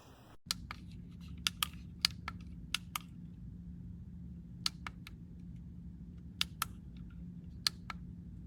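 Irregular sharp clicks, about a dozen, spaced unevenly over a steady low hum.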